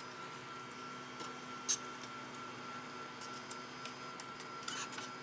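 Faint light clicks of metal tongs against a wire-mesh strainer and pan as rice noodles are stirred in hot water, one about two seconds in and several more near the end. Under them is a steady low hum with a thin high whine.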